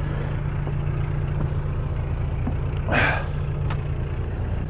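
Narrowboat's diesel engine idling steadily with a low, even hum, and a brief rushing noise about three seconds in.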